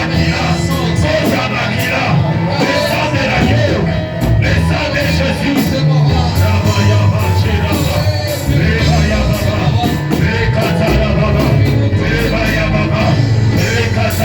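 Live church worship music: a band plays with a steady beat and heavy bass line while voices sing along, with occasional shouts.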